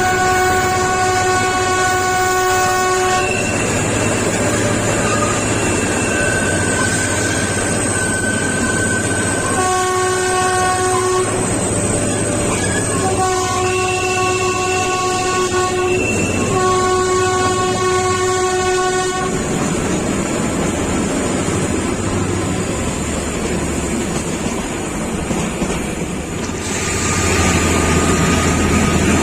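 Kalka–Shimla narrow-gauge toy train sounding its horn in four long blasts, each lasting two to three seconds, over the steady noise of the running train. After about twenty seconds the horn stops and only the running noise is left.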